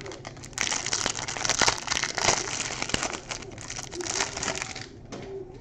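Plastic wrapper of a basketball trading card pack crinkling as it is torn open and handled, a dense crackle with sharp snaps lasting about four seconds.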